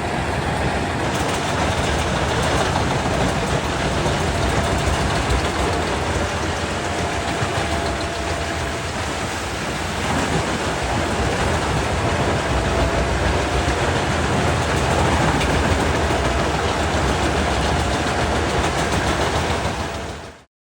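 Large wood chipper of about 800 horsepower running under load as it chews through logs: a loud, dense, steady mechanical din with a deep rumble. It cuts off suddenly near the end.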